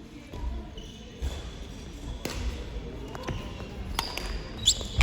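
Badminton rally: rackets hitting the shuttlecock about once a second, sharp single strikes, with voices in the background and a short high rising sound near the end.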